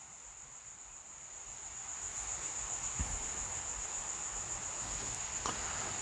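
A steady high-pitched insect trill, like a cricket, under faint rustling and a couple of light knocks from hanging plants being handled.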